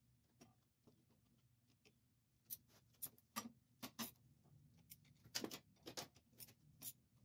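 Faint, scattered metal clicks and ticks of a socket ratchet and hand tools working the top-cover bolts of an old Chevrolet 490 transmission, more of them in the second half.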